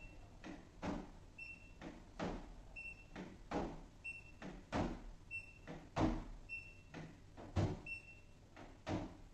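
Handheld digital paint thickness gauge being pressed again and again onto a car's painted hood: sharp taps of the probe roughly every half second to a second, with short high beeps from the gauge as readings are taken.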